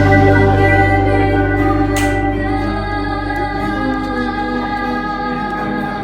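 Background music: a held chord that slowly fades.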